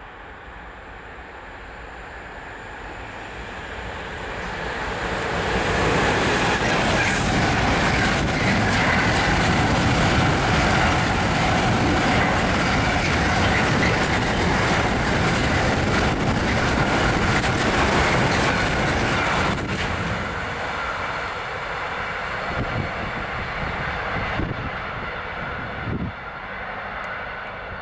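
Class 66 diesel freight locomotive running through, followed by a long rake of loaded box wagons rumbling and clattering on the rails. The noise builds over the first few seconds as the train nears and stays loud for about a dozen seconds. It then drops away, with a few knocks from the last wagons near the end.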